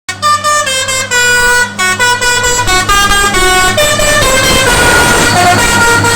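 Telolet multi-tone air horn on a container truck playing a quick tune of stepped notes, with the truck's engine running underneath.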